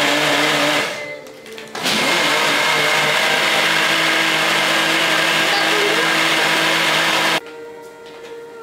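Electric blender running in two goes: a short run that stops about a second in, then a longer run of about five and a half seconds that cuts off suddenly.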